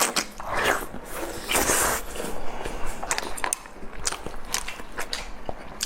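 Close-up eating sounds: a person biting and chewing food, with irregular bursts of crunching or slurping and many small clicks.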